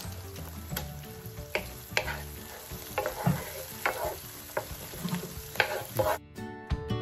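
Chopped onions sizzling in olive oil in a large skillet, with a wooden spoon stirring and scraping through them in repeated strokes. A little after six seconds in, the sizzle cuts off and music comes in.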